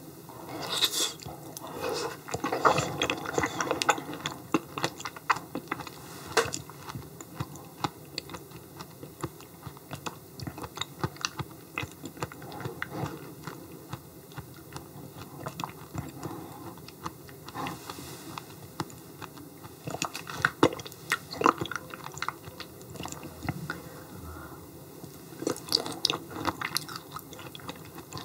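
Close-miked mouth sounds of a person chewing and biting raw yellow stingray liver, with many irregular short clicks and chewing noises.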